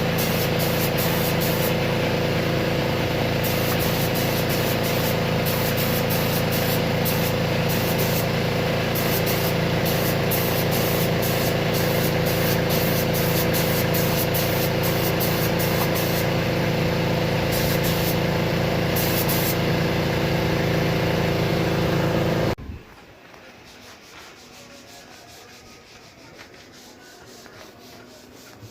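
A loud, steady mechanical drone with a constant hum that cuts off suddenly near the end, leaving only a faint background.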